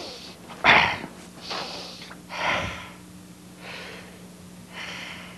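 Comic snoring from a puppet character: a string of noisy snorts and breaths about once a second, the loudest about a second in, over a faint steady hum.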